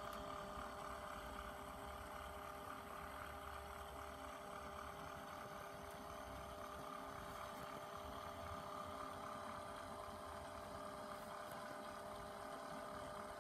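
Small 12-volt geared electric motor running steadily, driving a wooden beam engine model: a faint, even hum made of several fixed pitches.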